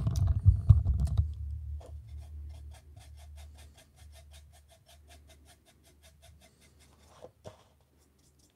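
A small paintbrush mixing acrylic paint on the base of a paper cup: dull knocks and rubbing as the cup is handled for the first second or so, then quick, even scratchy strokes, about five a second, that grow fainter and stop about seven seconds in.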